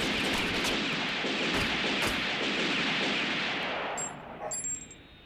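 Sustained automatic gunfire from the anime's soundtrack, a dense run of rapid shots for about four seconds that then fades out. Near the end, spent brass shell casings tinkle onto the ground.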